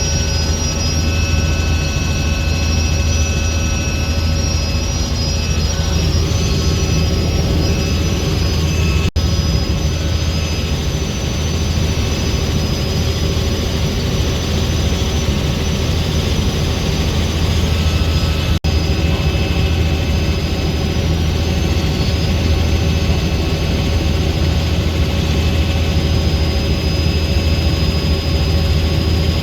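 Helicopter in flight heard from inside the cabin: a steady, loud low drone of the rotor and engine with a whine of steady higher tones above it. The sound drops out for an instant twice, about 9 and 18 seconds in.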